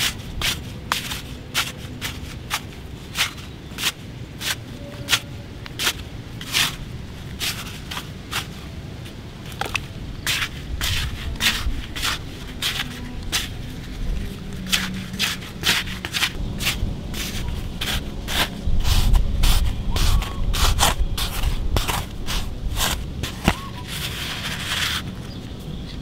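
Plastic toy shovels scraping and scooping dry, clumpy dirt: many short, irregular scrapes and crunches of soil clods. A low rumble makes the loudest stretch about two-thirds of the way through.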